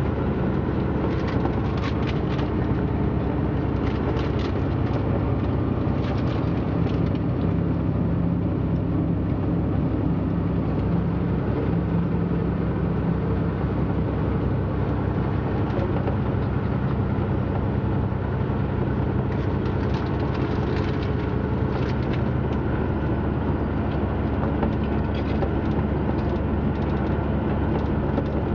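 Steady low drone of a running motor vehicle, with faint scattered clicks.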